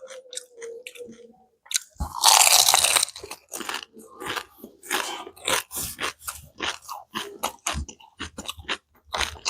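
Close-up crunching and chewing of a crispy pani puri (golgappa) shell. There is a loud burst of crunching about two seconds in, then a run of quick crunches, two to three a second.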